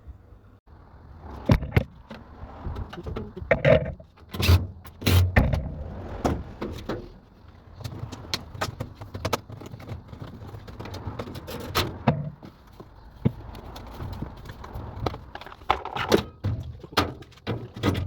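Repeated knocks, clanks and rattles of a washing machine's parts being handled and taken apart, over a low steady hum.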